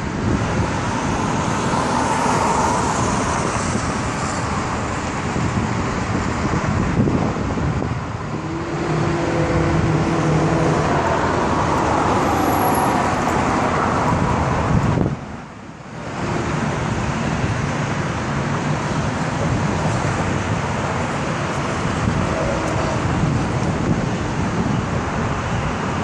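Road traffic on a multi-lane city street: a steady rush of passing cars. One car's engine note stands out for a couple of seconds about a third of the way in, and the noise drops briefly just past the middle.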